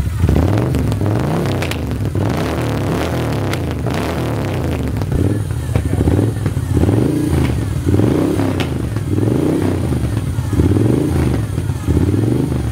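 Moto Guzzi V7's transverse 90° V-twin running at a standstill, its revs blipped up and dropping back over and over.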